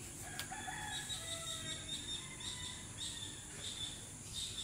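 High, short chirps repeating about twice a second, with a few brief thin whistled calls in the first second.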